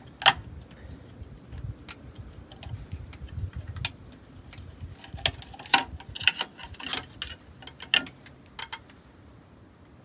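Sharp metal clicks and clinks of a hand wrench on the hub cap bolts of a bus's rear wheel hub, and of the loosened bolts and cap being handled, coming at irregular intervals and dying out near the end.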